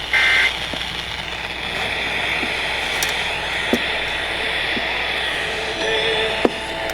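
Weather radio at the end of an alert: a short burst of warbling EAS data tones at the start, the end-of-message code that follows a warning, then steady radio hiss. About six seconds in, a steady chord of tones comes in over the hiss.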